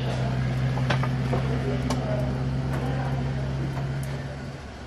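A steady low hum that cuts off shortly before the end, with a few faint sharp ticks.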